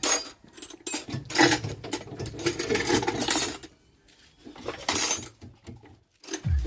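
Metal hand tools clinking and clattering in several separate bursts during drive shaft work.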